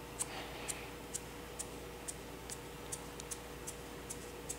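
Felt-tip marker ticking short strokes onto a bent metal pipe, a sharp little click about twice a second, over a faint steady hum.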